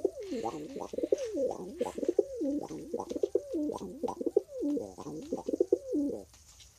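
Pet bird cooing in a continuous run of low, wavering notes that stops shortly before the end. The owner puts the steady cooing down to excitement.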